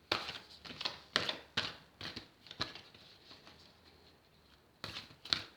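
Oracle cards being shuffled and handled: a run of quick, irregular flicks and taps, a pause, then a few more near the end.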